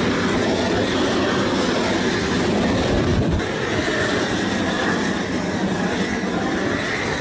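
Propane roofing torch burning with a steady rushing flame, heating a roll of 90-pound cap sheet to torch it down onto the roof.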